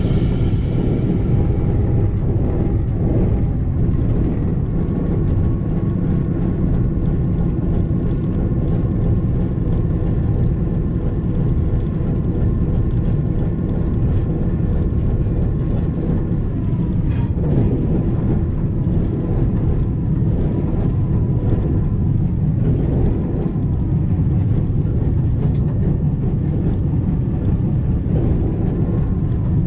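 Diesel locomotive running as it rolls along the track, a loud, steady, deep rumble. A faint steady whine sits over it through the middle stretch.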